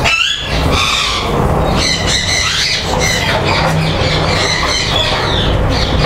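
Many parrots squawking and screeching at once, calls overlapping throughout, over a low steady hum.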